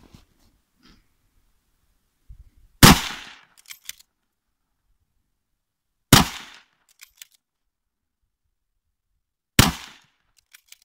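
Three shots from a Finnish Mosin-Nagant m/28-30 bolt-action rifle, about three and a half seconds apart, each with a short echo. Each shot is followed by two quick clicks as the bolt is cycled.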